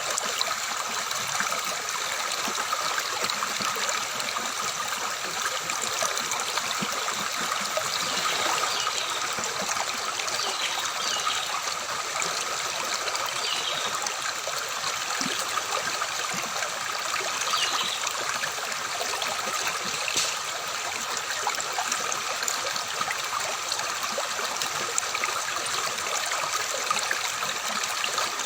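Stream water flowing and trickling steadily, an even splashing murmur with no pauses.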